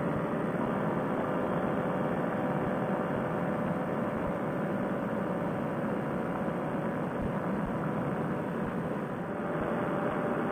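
Fresh Breeze Monster paramotor engine and propeller running steadily at cruise power in flight, a continuous drone with a steady hum, easing slightly about nine seconds in.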